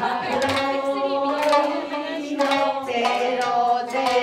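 Nagauta singing in long, held notes that slide between pitches, with a few plucked shamisen notes over it.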